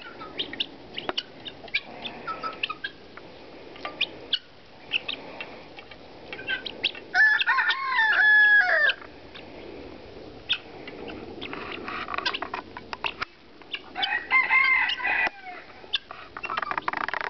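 Chickens and helmeted guineafowl pecking at sour cream on a plastic tray: many quick taps of beaks on the plastic. Two loud drawn-out fowl calls come through, one about seven seconds in and another about fourteen seconds in.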